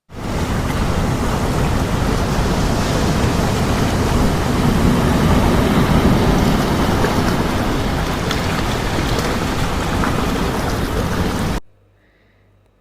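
Loud, steady rushing of water that starts abruptly and cuts off abruptly shortly before the end.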